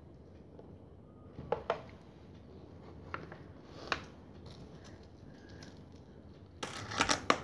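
A few faint, sharp clicks and taps of small craft pieces being handled, then a short spell of rustling near the end as a piece of fluffy faux-fur fabric is moved about close by.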